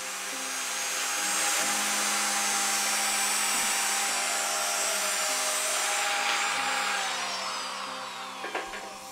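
Handheld electric drill spinning a sanding attachment against the rough edge of a hole in steel tube, with a steady grinding whine. Near the end its pitch falls as the drill winds down. Background music plays underneath.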